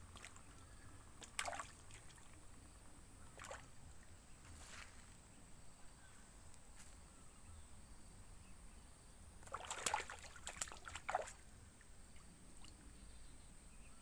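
A few short splashes and sloshes of water, the loudest cluster about ten seconds in, over a quiet background with a faint steady high tone.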